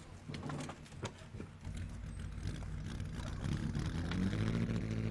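Early vintage car engine starting up. A few light clicks come first, then a low engine note builds and keeps running, rising and getting louder near the end.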